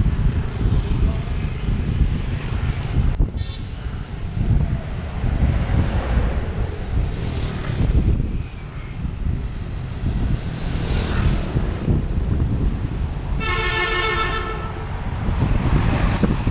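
Wind and road rumble from a ride along a road, with a short, high horn beep about three seconds in. A vehicle horn honks for about a second near the end, on one steady pitch.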